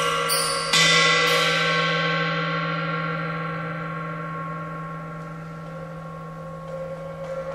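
Music of struck, bell-like notes: three strikes in the first second and a half, the second the loudest, then the notes ring on and fade slowly for several seconds.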